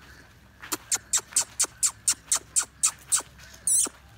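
A bird calling: a quick series of about a dozen short, sharply falling chirps, four or five a second, then a brief high warbling note near the end.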